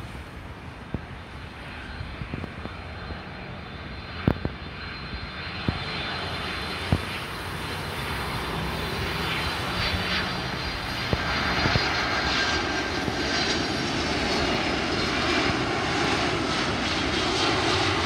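Boeing 767-300ER on final approach, its twin turbofan engines whining and rumbling and growing steadily louder as it nears and passes low. A high fan whine comes to the fore in the second half. A few sharp knocks sound in the first seven seconds.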